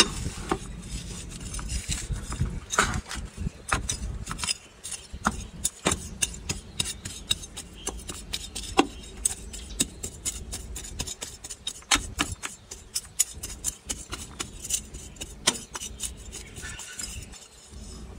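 A hand trowel digging and turning over soil: quick scrapes and sharp clinks, several a second, thinning out near the end.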